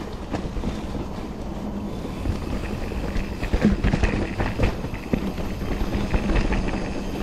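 Mountain bike rolling down a dirt singletrack: steady rumble of the tyres and frame over the ground, with a run of sharp knocks and rattles from bumps in the middle.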